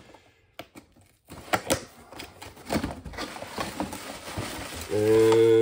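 Scattered clicks, taps and light scraping of cardboard packaging being handled as an inner cardboard box is shifted inside a larger box, starting about a second in. Near the end a man's voice begins a drawn-out sound.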